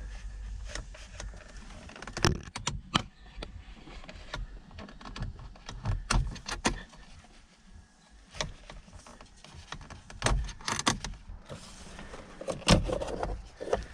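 Irregular clicks, taps and plastic knocks from working a BMW E87 steering wheel's airbag free with a small T20 Torx driver. The loudest knocks fall about 2, 6, 11 and 13 seconds in.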